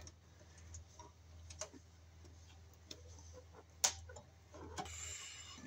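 Faint scattered clicks and rustles of stranded copper electrical wires being handled and twisted together by hand, with one sharper click about four seconds in.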